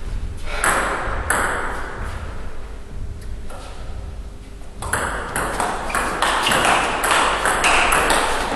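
Table tennis ball clicking off bats and the table: two single clicks early, then a rally from about five seconds in, about three clicks a second, each with a short echo in the hall.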